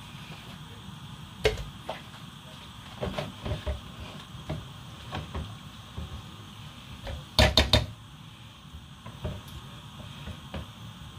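Serving spoon clicking and knocking against a plastic food container and a non-stick pot as stew is scooped out. The knocks come irregularly, with a quick run of about four loud knocks a little past the middle.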